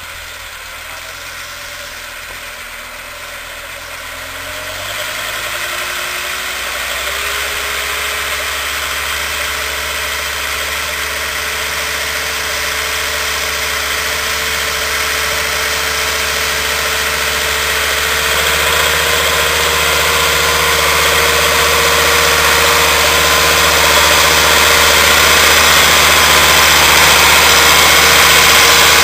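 SAME Laser 100 tractor's diesel engine working under load while pulling a disc plough, growing steadily louder as it approaches. A steady whine comes in about five to seven seconds in and then holds.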